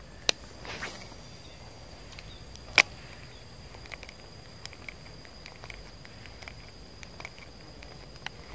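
Lure casting with a baitcasting rod and reel: a sharp click, a short whoosh of the cast, then a louder click about three seconds in, followed by faint scattered ticks. A thin steady high-pitched whine runs underneath.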